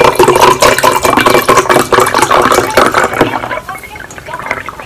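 Juice pouring from a carton into a glass, glugging and splashing as the glass fills, easing off in the last second or so as the stream thins.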